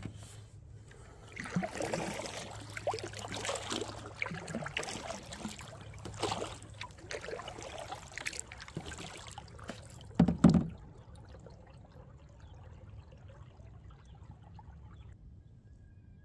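Canoe paddle strokes with water splashing and trickling off the blade, irregular through the first ten seconds. A single loud thump comes about ten seconds in, after which only faint steady water and wind noise remains.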